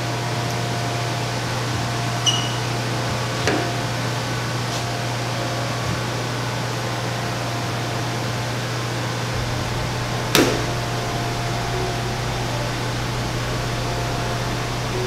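Steady low hum with hiss, with a few sharp clicks and knocks over it, the loudest about ten seconds in.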